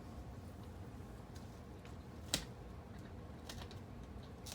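Faint scraping and tapping of a small hand tool on model railroad track and ballast, with one sharp click about two seconds in, over a low steady hum.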